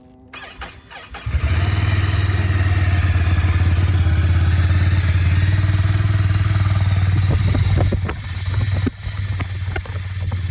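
Ducati Scrambler's 803 cc air-cooled L-twin with a Termignoni exhaust, cold-started: the starter cranks briefly, then the engine catches about a second in and runs at a loud, steady fast idle. After about eight seconds it turns quieter and less even.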